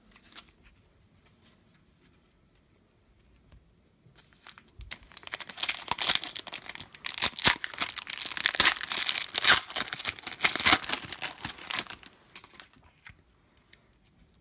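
A sealed foil hobby pack of 2017 Panini Contenders Draft Picks football cards being torn open by hand, its wrapper crinkling with many sharp crackles. This starts about four seconds in and lasts around eight seconds.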